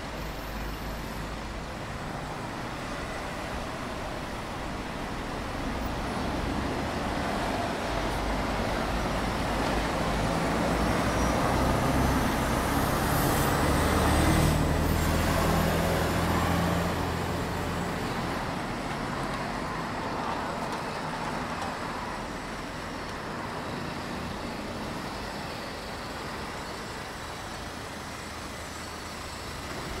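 City street traffic: steady road noise of passing cars and buses. About a third of the way in it swells as a city bus's engine rumbles past close by, then it eases back to a steady background hum.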